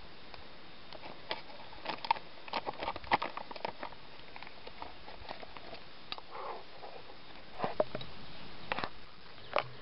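Freshly poured egg mix sizzling in hot oil in a frying pan over a wood fire: a faint steady hiss with scattered, irregular pops and crackles. The cook later judges that the pan was not yet hot enough to set the eggs.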